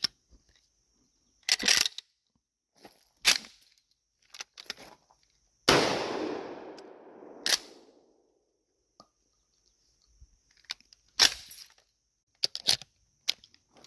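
Pump-action shotgun being racked, short sharp metallic clacks every second or two. About six seconds in comes one loud bang, its echo fading away over about two seconds.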